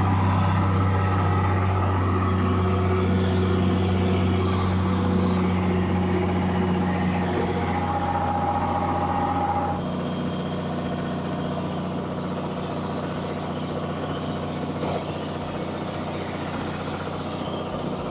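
Excavator's diesel engine running steadily after being jump-started, easing off slightly about ten seconds in.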